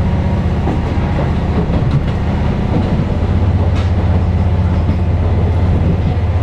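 Diesel engine of a KiHa 40 series railcar running steadily under power as the train pulls away and gathers speed, heard from inside the passenger cabin along with the wheels on the rails. The engine's low throb swells slightly about halfway through.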